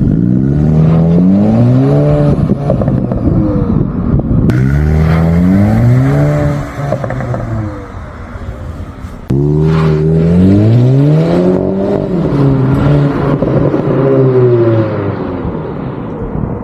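VW Golf 8 GTI's turbocharged 2.0-litre four-cylinder through its stock exhaust, revving up and down several times. There is a sudden louder start about nine seconds in.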